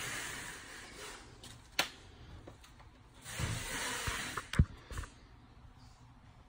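Hissy rustling in two short spells, with a few sharp knocks or clicks, the loudest about four and a half seconds in.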